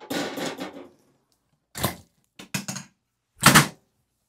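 Chiropractic drop table clunking: a short shuffling noise at the start, then a few short knocks and one louder sharp clunk about three and a half seconds in.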